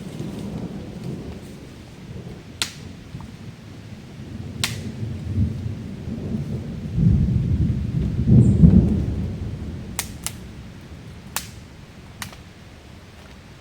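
Low rolling thunder that swells to its loudest about eight seconds in and then dies away, over steady rain. A handful of sharp single clicks are scattered through it.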